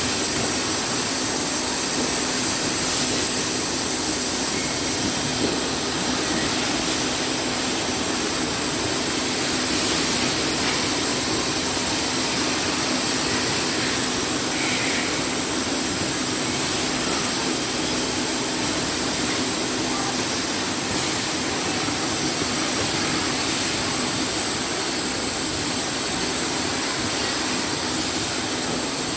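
Steady whirring hiss of running machinery, with a thin high whine over it and no break or change.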